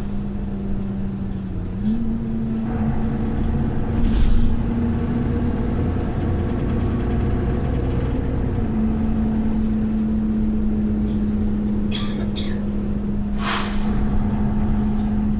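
Mercedes-Benz Citaro O530 bus running, heard from on board: a steady engine drone with a hum that steps up slightly about two seconds in. Two short air hisses cut in, about four seconds in and near the end: the bus 'sneezing'. A few sharp clicks come a little before the second hiss.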